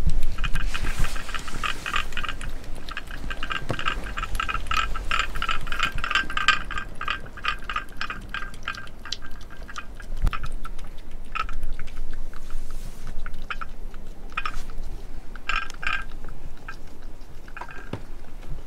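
A cat eating at close range: quick wet licking and chewing, a rapid run of small clicks and smacks that thins out to scattered licks and bites after the first several seconds, with a light clink of the ceramic spoons now and then.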